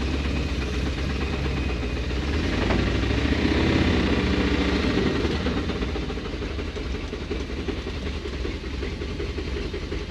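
Dodge 360 V8 running as the truck crawls along in low range. It swells louder for a few seconds in the middle, then eases back. The engine has a rod knock.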